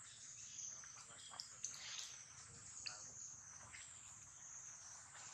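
Faint, steady high-pitched drone of insects, with a few short squeaks and clicks between about one and three seconds in.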